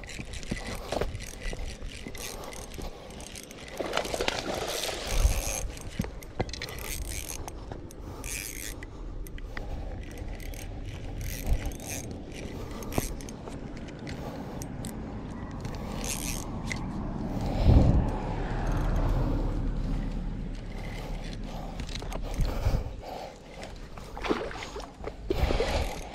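A small Shimano spinning reel being cranked in spells, its gears whirring and ticking, mixed with scraping and rustling handling noise on the microphone. Midway there is a loud low rumble.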